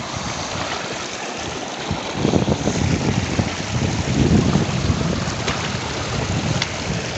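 Shallow stream rushing and splashing over rocks in small rapids: a steady rushing noise that swells a little about two seconds in.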